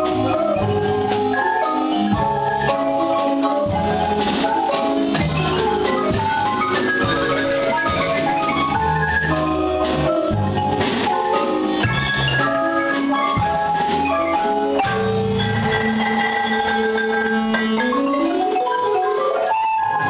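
Marimba ensemble of several players on two Guatemalan marimbas, a large one and a smaller one, playing a lively piece of many quick notes and long held notes. Near the end a low note is held while a quick run climbs upward.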